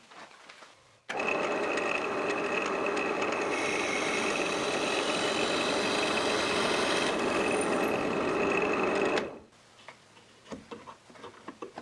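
Drill press running with a 6 mm twist bit, drilling a blind hole into the end grain of a pine dowel. It is a steady motor and cutting sound with a high whine, starting about a second in and stopping suddenly after about eight seconds. The hard grain deflects the flexible bit, so the hole comes out off-centre.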